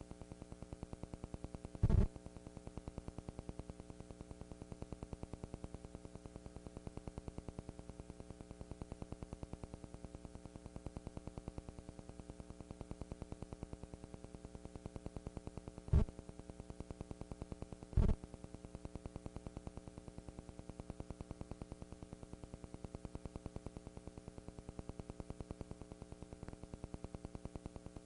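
Steady electrical hum and buzz with hiss, holding one unchanging pitch throughout; no band music is heard. Sharp clicks about two seconds in and twice more near the middle, two seconds apart.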